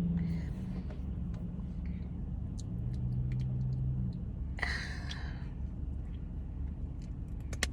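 Steady car cabin noise of a car being driven: low engine hum and road rumble, with faint small clicks and one short breath a little past halfway.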